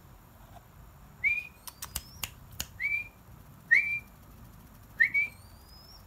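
A person whistling short call notes, about one a second, each a quick upward slide into a brief held note, calling a hand-reared zebra dove chick to come to be fed. A few sharp clicks fall between the first and second notes.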